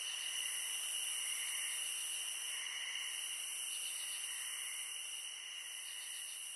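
Night insects, crickets, calling in a steady chorus, with a softer pulsing call repeating a little more than once a second.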